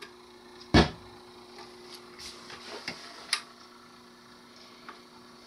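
BSR Quanta 720 turntable: a loud thump as the tonearm is lifted off the record, then a few light mechanical clicks and clunks as the arm is set back on its rest. A faint steady hum runs underneath.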